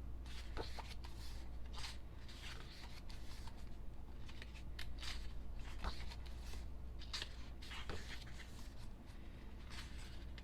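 Paper rustling with small clicks and taps as a K-pop album's photobook and contents are handled and leafed through, over a steady low hum.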